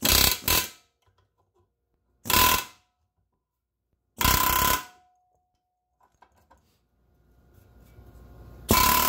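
Pneumatic air hammer with a chisel tip rattling against a control arm's rubber bushing and steel sleeve in four short bursts, each under a second, the first one stuttering. It is crushing the bushing inward to free it from the control arm.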